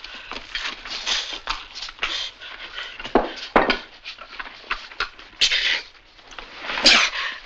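A man's short comic grunts and squeals mixed with irregular rustling and clattering as a turkey is stuffed by hand, with a few sharper, louder bursts midway and near the end.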